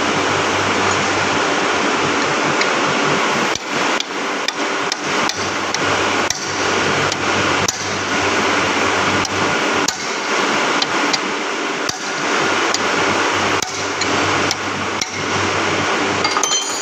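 A long series of hammer blows, about two a second, starting a few seconds in, struck to tighten a milling machine spindle's bearing to the right clearance. A steady hiss runs underneath.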